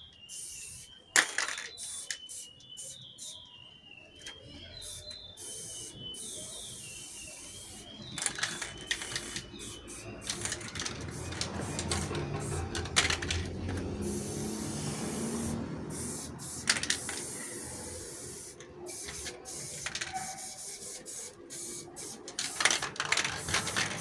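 Aerosol spray paint can hissing in repeated bursts, some short and some longer, as outline lines are sprayed onto a wall.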